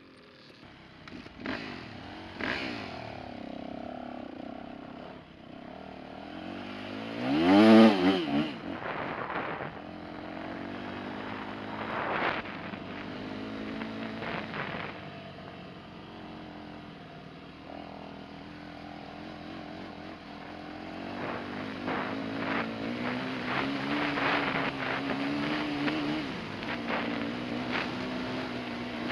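Dirt bike engine being ridden hard, its pitch climbing and falling with the throttle and gear changes. A sharp rev about eight seconds in is the loudest moment. Scattered knocks and clatter come from the ruts, and the engine holds higher revs for several seconds near the end.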